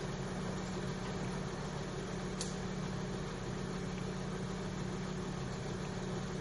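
An engine idling steadily, an even low hum that holds the same speed throughout, with one faint click about two and a half seconds in.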